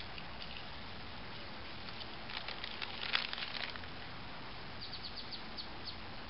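Steady outdoor background noise with short bursts of high clicks and chirps, a cluster about two and a half to three and a half seconds in and a quick even run of them near the end.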